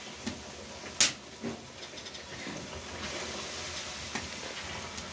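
Puri frying in a karahi of hot oil over a wood fire: a soft, steady hiss with a few sharp crackles, the loudest about a second in.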